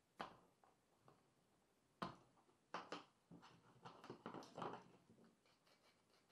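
A scattered series of sharp knocks and clicks, with a tight cluster of them in the middle seconds.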